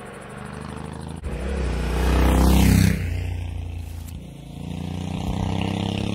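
Honda Africa Twin CRF1100's parallel-twin engine on its stock exhaust, revving hard as the motorcycle passes close by at speed, the note dropping in pitch as it goes past about three seconds in. The engine then rises again, less loud, from about four and a half seconds.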